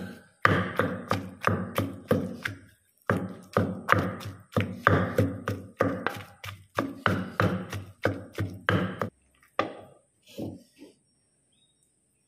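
Wooden pestle pounding in a mortar, mashing boiled eggs into chili paste: rapid, even knocks about three a second in runs with short breaks, tailing off to a few lighter strokes near the end.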